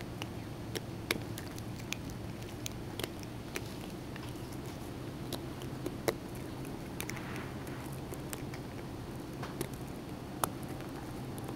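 A cat sucking on its own front paw pads, making wet smacking clicks and sharp sucking pops at irregular intervals, the loudest about 6 s and 10.5 s in. A steady low hum runs underneath.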